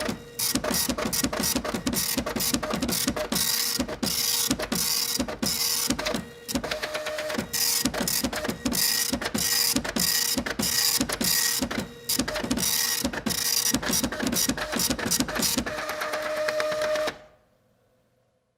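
Printer printing: a fast, even mechanical clatter of the print mechanism with a steady hum under it, pausing briefly twice, then stopping near the end.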